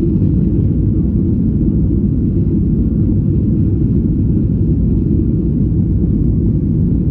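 Boeing 737 on its takeoff, a loud, steady low rumble with no separate impacts: the sound given as that of its tail striking the runway.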